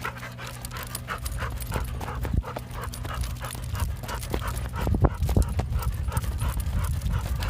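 A dog panting hard and fast while running on a leash, with running footsteps and knocks and rumble on the microphone that grow louder in the second half, peaking about five seconds in.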